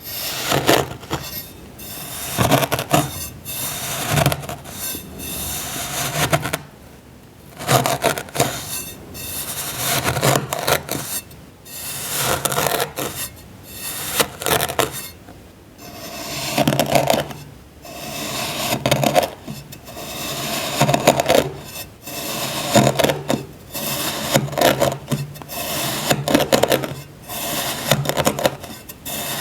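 Packed sand being cut and crumbled with a tool: a run of crunchy, gritty scrapes, one every second or two, with short pauses twice.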